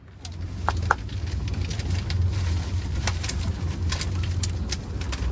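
A steady low rumble with scattered sharp splashes and clicks, as a hooked fish thrashes at the surface beside the boat.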